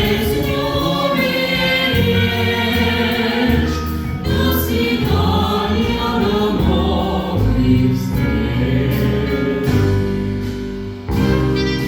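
Live ensemble music playing a medley in full, sustained chords, with a choir-like sound; about eleven seconds in it shifts abruptly into a louder passage.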